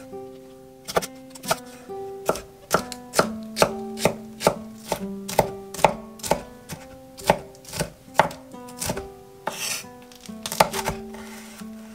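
Wide-bladed vegetable knife chopping red and green chilli peppers on an end-grain wooden cutting board: sharp, uneven knocks of the blade against the wood, about two to three a second, with a brief pause about nine seconds in.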